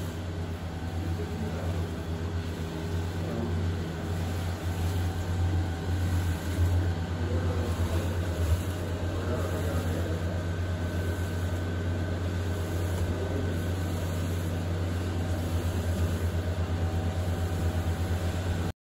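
Electric motor of a stainless steel mixing machine running with a steady low hum.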